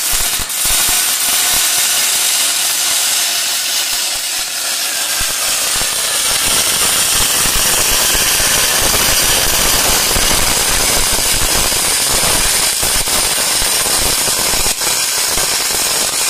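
MIG welding arc from a Fronius TransSynergic 4000 wire-feed welder, burning continuously as a dense crackling hiss. The crackle grows heavier about five seconds in.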